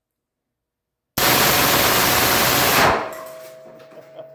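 Custom full-auto AR-pattern submachine gun, an AR built with WWII grease-gun features and fed from a Glock magazine, fires one continuous burst of just under two seconds, starting about a second in, and empties the magazine. The shots run together into one solid, distorted wall of noise that stops suddenly and then dies away in the room's echo.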